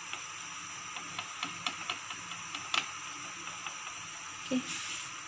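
Faint, irregular ticking crackles, a few a second, from naan dough cooking on a hot flat pan over high heat, over a steady hiss. A short, louder hiss comes near the end.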